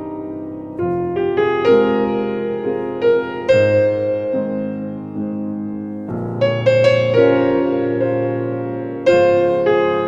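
Piano music: chords and single notes struck one after another, each left to ring and fade.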